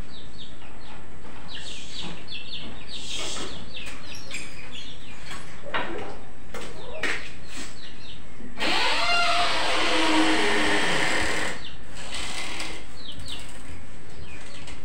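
Cooled herbal decoction poured from a pot into a glass: a splashing rush of liquid lasting about three seconds, starting a little past the middle. Scattered short, sharp high sounds come before it.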